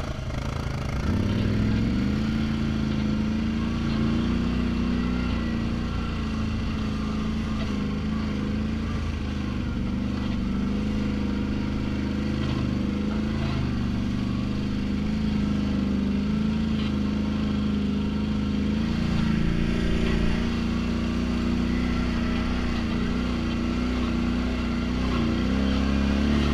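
Single-cylinder-style ATV engine running at a steady trail-riding throttle, the pitch holding mostly even with small rises and dips around twenty seconds in and a rev-up near the end.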